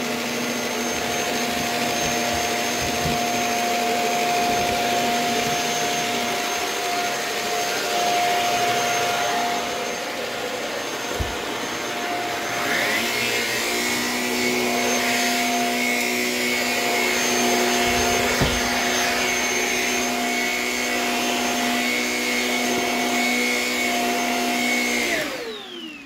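Shark Rocket Apex stick vacuum with a self-cleaning brush roll head running steadily, with no rattle or unusual noise; its pitch shifts about halfway through. Near the end the motor is switched off and winds down with a falling whine.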